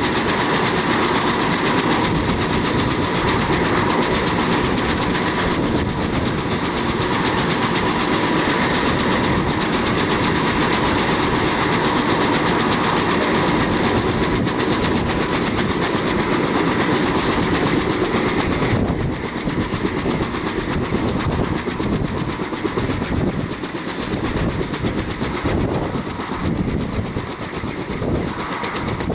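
Kaman HH-43 Huskie helicopter running on the ground, its engine and intermeshing twin rotors turning: a loud, steady whine over a rapid rhythmic rotor beat. About two-thirds of the way through, the sound drops a little and the whine fades, leaving a choppier beat.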